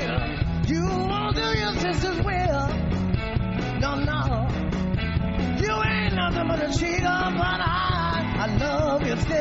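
Blues-rock band playing live, with a lead line that bends and wavers in pitch over a steady bass and drum backing.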